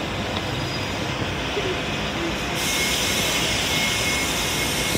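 City transit bus approaching through a bus terminal on wet pavement: a steady low engine rumble under general station noise, with a hiss that sets in about halfway through.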